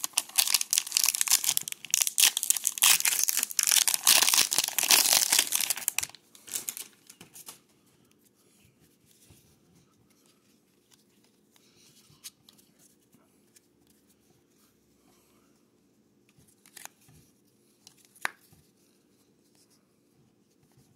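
Plastic wrapper of a Topps baseball card pack being torn open and crinkled for about six seconds. It then goes mostly quiet, with a few soft clicks as the stack of cards is handled.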